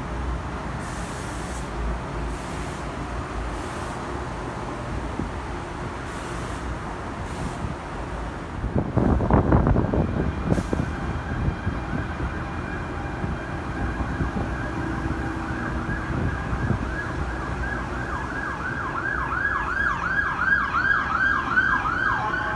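Emergency vehicle siren over steady traffic noise: a held tone that switches to a rapid yelp over the last few seconds. A louder rumble comes about nine seconds in.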